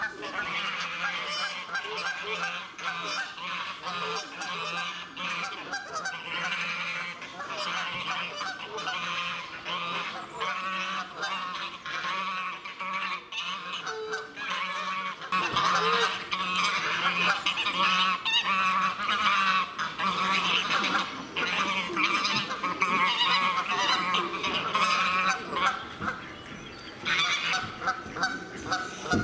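Domestic geese honking over and over in a loud, overlapping chorus, growing louder about halfway through.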